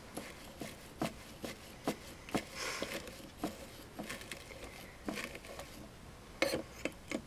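Irregular light clicks and taps of soldering tools and wire being handled while working on a joint, with a short scratchy rustle about two and a half seconds in and the sharpest tap about six and a half seconds in.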